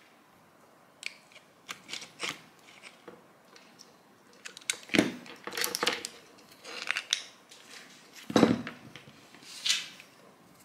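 Parts of an old jigsaw being handled during a teardown: scattered clicks, knocks and short scrapes of plastic and metal pieces. The loudest knock comes about eight seconds in.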